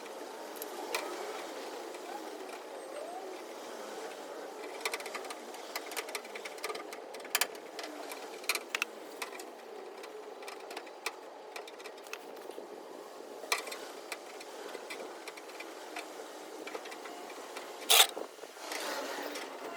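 Paintless dent repair work on a truck's quarter panel: scattered, irregular light taps and clicks of the tools on the metal over a steady background hum, with one sharper click near the end.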